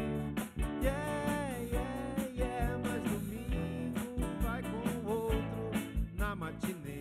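Live band playing: drum kit, electric bass and electric guitars, with a steady kick-drum beat under a lead melody line that bends and slides in pitch.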